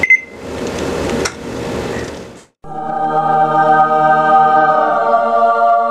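A short high beep from the stove's touch-control panel, then about two seconds of hissing noise, then a choir sound effect: a held 'aah' chord that begins just after a brief silence and rings on steadily, the heavenly reveal of a finished breakfast.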